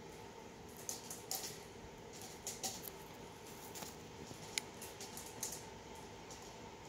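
Faint handling noise of a gold card in a clear plastic sleeve turned over in nitrile-gloved hands: soft scattered crinkles and rubs, with one sharp little tick past the middle.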